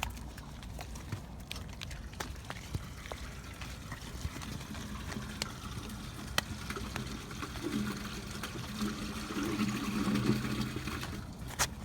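The last of an RV's gray water trickling and draining through a sewer dump hose into a dump station inlet, with scattered small clicks and a low hum joining in past halfway.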